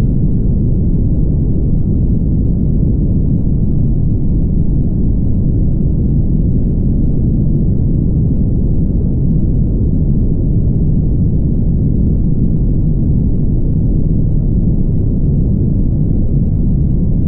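Steady low rumble of a car driving along a highway: road, tyre and engine noise, even throughout with no distinct events.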